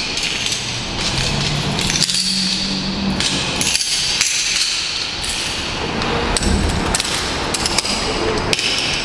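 Metal rope-access hardware, carabiners and a pulley, clinking and knocking again and again as a pulley haul system is taken apart on the rope.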